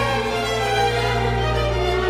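Background music with sustained, violin-like bowed string tones over a steady low bass.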